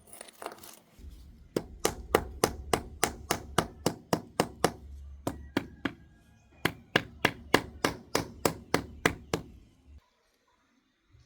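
Rapid series of sharp taps of a hand tool striking a hard floor surface, about three to four a second, in two runs with a brief lull around the middle. A low hum underneath cuts off abruptly near the end.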